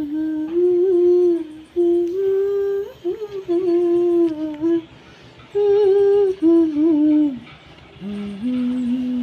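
A woman humming a slow, wordless melody: long held notes that step up and down, in phrases of a second or two with short breaths between them.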